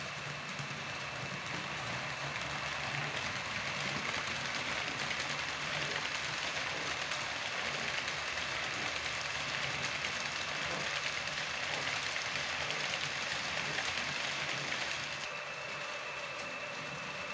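H0-scale model train running along the layout track: a steady rolling rattle of small wheels on rail, with a thin constant whine. It grows louder as the train passes and eases off about fifteen seconds in.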